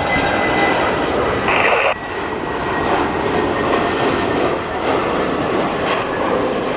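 Jet airliner on approach to land: a steady engine roar with a thin, high whine.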